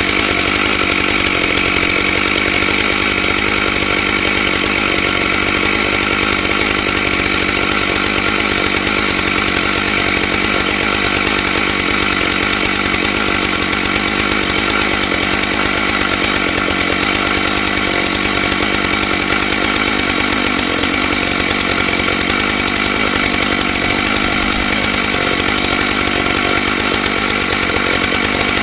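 Stihl MS661 two-stroke chainsaw running steadily in a chainsaw mill, ripping lengthwise through a pine log with a ripping chain.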